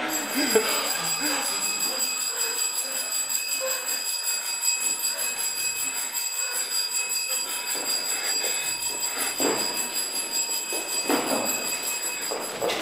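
A steady high-pitched whining tone with overtones that starts and cuts off abruptly, over faint voices and a few knocks.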